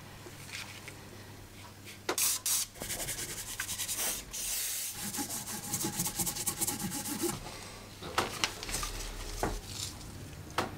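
A rubber coolant hose being scrubbed by a gloved hand, a run of quick rasping, rubbing strokes through the middle, followed by a few sharp clicks and knocks as parts are handled and set down.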